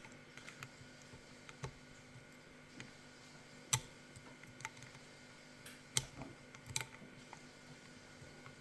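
Sparse small metallic clicks and taps of a lock pick and wire tensioner working the pin stacks of an Izis pump lock during picking. Three sharper clicks stand out in the second half.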